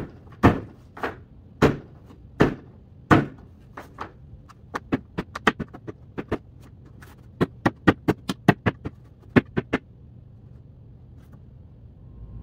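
A knife stabbed down again and again through a quilted jacket into the cardboard beneath: a few heavy thuds about half a second apart, then quicker runs of lighter knocks, stopping about ten seconds in.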